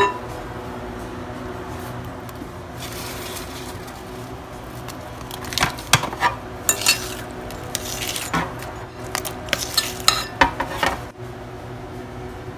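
Utensils knocking and scraping in a glass bowl of glaze as small fried donut balls are stirred and coated. A run of sharp clinks, a metal spoon against the glass, comes from about halfway through.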